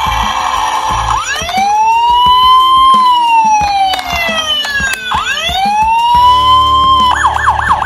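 Electronic siren of a Tonka toy police car, played through its small speaker. About a second in it gives a long wail that rises fast and then slowly falls, and a second wail follows. Near the end it switches to a fast yelp of about four cycles a second.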